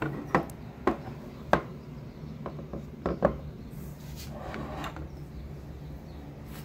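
Handling sounds: about five sharp knocks and clicks, spread over the first three and a half seconds, as a small metal signal-generator box and its plugged-in power cable are moved about on a wooden tabletop, with some rubbing.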